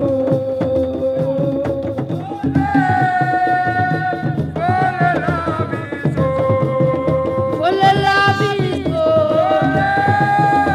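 Music playing loudly: a voice holding long, drawn-out notes over a fast, busy drum beat.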